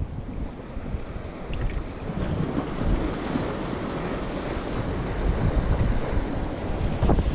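Strong wind buffeting the microphone: a low, gusting rush that grows louder about two seconds in, with a brief bump near the end.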